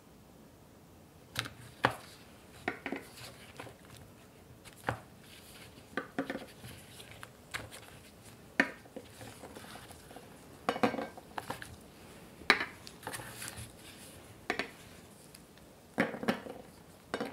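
Round chocolate bonbons set down one at a time on a ceramic plate, making sharp, light clicks at irregular intervals as they knock against the plate and each other. Some of the clicks come in quick pairs or small clusters.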